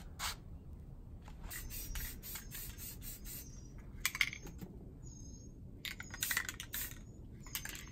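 Aerosol spray-paint can hissing in a quick series of short bursts as bare spots on a steel rack are touched up, with longer pauses between later bursts. A bird gives a faint, thin call about five seconds in.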